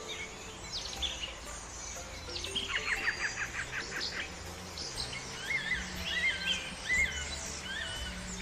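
Several birds singing and calling: a quick series of short falling notes about a third of the way in, then a string of short whistled notes that rise and fall, over a low steady hum.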